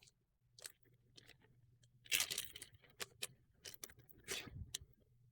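Crinkling and rustling of plastic packaging being handled, probably as the charging cable is taken out and unwrapped. Scattered clicks and crackles run throughout, with the loudest crinkling about two seconds in and again near four and a half seconds.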